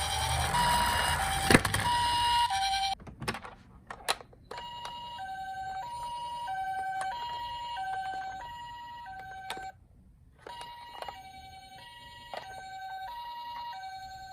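Toy ambulance's electronic two-tone siren, the Japanese ambulance 'pee-poh' pattern of a high note and a lower note taking turns. It sounds over a rumbling noise at first, cuts out for a moment with a few clicks, comes back quieter, breaks off again briefly and resumes.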